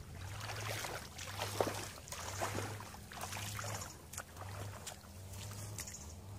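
People wading through shallow, muddy paddy water, their feet sloshing and splashing in a steady walking rhythm.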